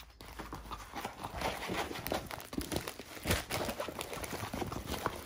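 Irregular rustling, crinkling and light tapping as a rolled diamond-painting canvas and the plastic bags of drills rolled inside it are handled.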